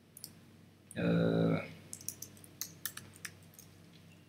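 Keys tapped on a computer keyboard: a quick run of about eight light clicks in the second half. About a second in, a voice holds a short, steady 'euh', the loudest sound.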